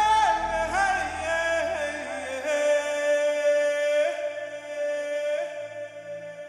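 Credits music: a slow melody sung by a single voice, sliding between notes at first, then held as one long steady note from about two and a half seconds in, over a low drone that fades away.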